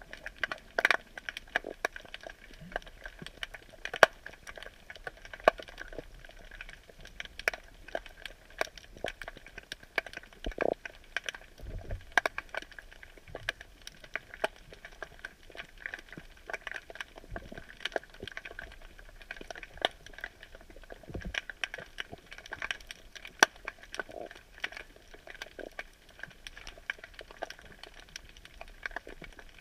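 Underwater crackle of dense, irregular clicks and pops, with a few louder knocks, picked up by a submerged camera.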